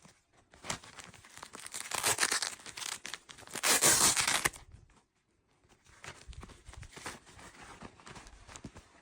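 Packaging being torn open and crinkled by hand, with two louder rips in the first half, then softer rustling and crinkling.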